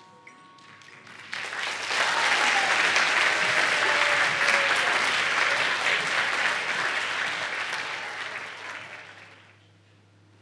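The last mallet-percussion notes ring away, then an audience of schoolchildren breaks into applause about a second and a half in. The clapping swells, holds, and fades out near the end.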